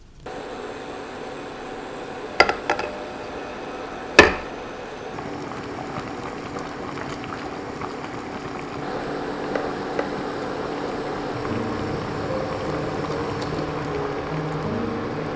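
Water simmering in a pot under a glass bowl of melting chocolate and butter (a double boiler), with a silicone spatula stirring the chocolate. There are a few sharp clinks of the glass bowl and pot, the loudest about four seconds in.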